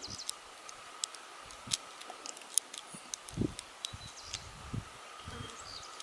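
Faint, scattered clicks of a thin steel hook pick lifting pins one at a time in the six-pin core of an Abus 74/40 plastic-bodied lockout padlock, with a few soft low bumps from handling the lock.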